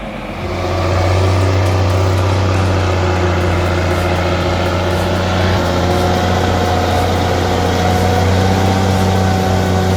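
Mercedes-Benz Unimog's diesel engine running steadily while hauling a load of oak logs. It is a loud, deep, even drone that swells up within the first second and then holds steady.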